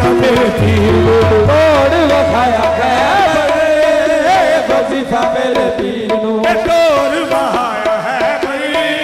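Live qawwali music: a lead singer's ornamented, wavering vocal line over held harmonium notes, with tabla drumming.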